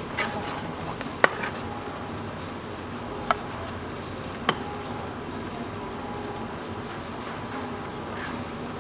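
Steady hum and background noise at a food stall, with three short sharp clinks, the first about a second in and the loudest.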